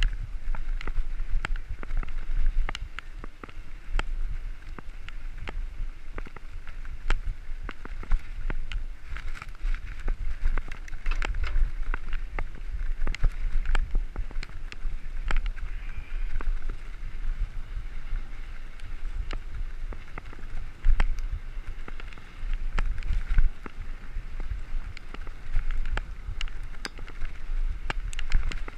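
Mountain bike rolling fast over a dirt and gravel track: tyre noise with frequent rattles and knocks from the bike over bumps, and a low wind rumble on the microphone.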